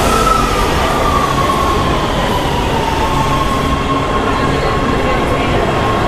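Metro subway train running in an underground station: a steady rumble, with a high thin whine or wheel squeal that sets in at the start, slides slowly down in pitch over the first few seconds and then holds steady.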